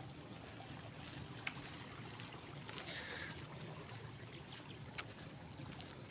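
Faint steady outdoor background noise with a few sharp, widely spaced footsteps on a gravel path, and a brief higher chirp about halfway through.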